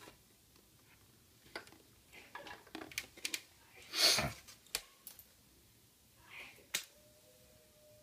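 Handling noise from a plastic-and-metal fan heater being turned over in the hands: scattered clicks and knocks, with one louder, longer brushing noise about halfway through.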